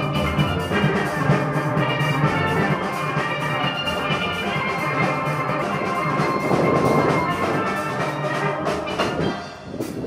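Steel band playing: steel pans from high tenor pans down to bass pans struck in a quick, steady rhythm. The playing drops off and gets quieter near the end.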